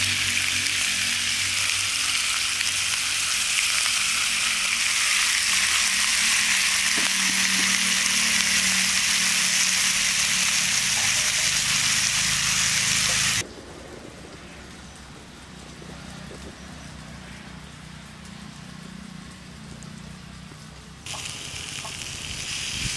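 Masala-coated fish pieces sizzling in oil on a griddle pan, a steady high frying hiss. About 13 s in it drops suddenly to a much quieter sizzle, and it picks up again near the end as a piece is lifted from the pan.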